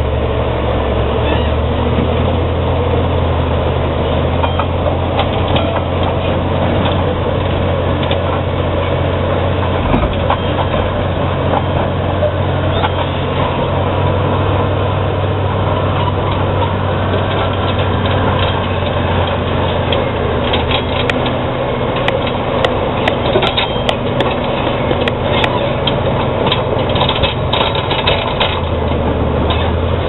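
Caterpillar D7G crawler bulldozer's six-cylinder diesel running under load as it rips rock with its rear ripper, a steady low engine drone. In the last third, a run of sharp clanks and cracks comes over it as tracks and ripper work through the rock.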